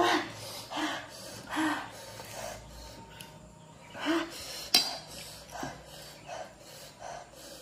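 Eating panipuri: crisp puri shells being poked open and a spoon scraping and clinking in a bowl, with short sharp breaths through the open mouth at the spicy filling. One sharp clink comes about two-thirds of the way in.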